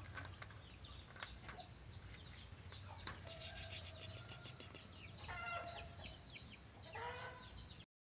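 Caged nuri dora parrot calling: scattered short clicks and chirps, a loud burst of squawks about three seconds in, and two longer pitched calls near the end. The sound cuts off suddenly just before the end.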